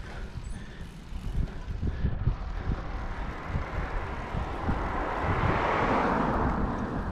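Wind buffeting the microphone on a moving bicycle, with the rushing sound of a passing vehicle that grows louder, peaks about six seconds in and fades.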